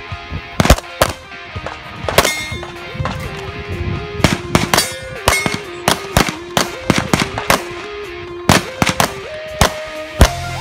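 A fast, irregular string of pistol shots from an STI Edge in .40, fired on the move during an IPSC course of fire. Background music plays under the shots.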